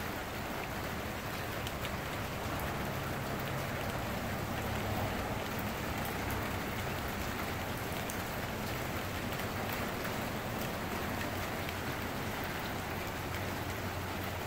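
Heavy rain pouring steadily onto a paved sidewalk and parked cars: a dense, even hiss with scattered sharp ticks of individual drops.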